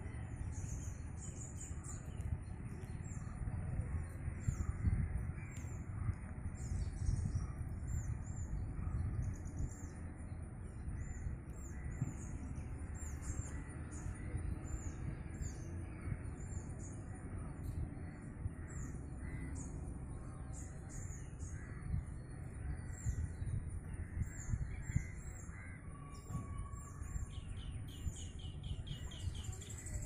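Many birds chirping and calling in short repeated notes, over a steady low rumble and a faint, steady high whine. Near the end there is a quick run of rapid ticking notes.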